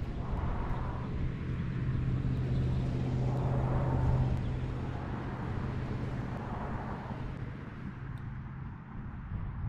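Distant engine drone of a passing motor vehicle, a steady low hum that swells to a peak about four seconds in and then fades.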